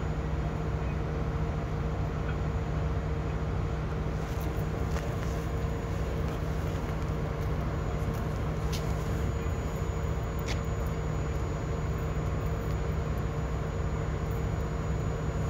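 Fire apparatus engine running steadily at the scene, a constant low drone with a steady hum, as the apparatus pumps water to an aerial ladder's hose stream. A couple of faint clicks sound about two-thirds of the way in.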